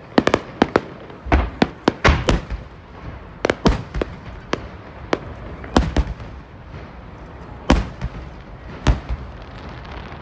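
Fireworks shells bursting with sharp bangs in quick succession, about a dozen in the first six seconds, then thinning to two single bangs before a low rumble near the end.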